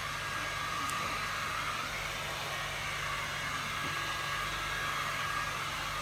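Steady whirring drone of an electric blower running, with a low hum under it.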